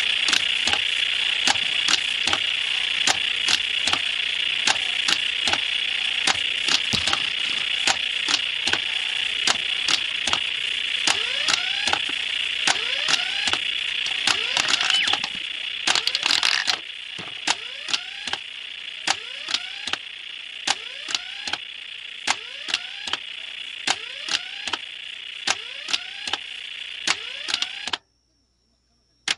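Retro Nishijin 'Red Lions' hane-mono pachinko machine playing: a steady high electronic tone under a run of sharp clicks, a little under two a second, from the wings opening and shutting, with short rising chirps. The sound gets quieter about halfway through and cuts off suddenly near the end.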